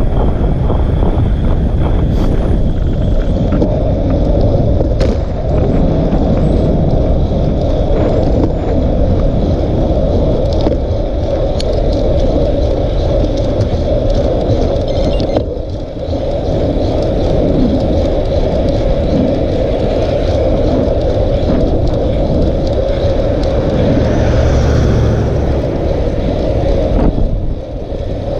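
Heavy wind rush on the microphone of a bicycle-mounted camera at riding speed, mixed with tyre noise on asphalt. The rush dips briefly about halfway through and again near the end, and a passing vehicle adds a hiss shortly before the end.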